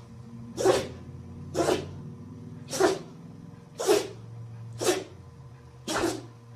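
An animal sneezing again and again, six short sneezes about a second apart, over a faint steady low hum.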